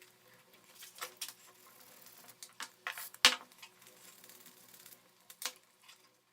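Scattered light clicks, taps and scrapes of small hard parts being handled, with one sharp click about three seconds in.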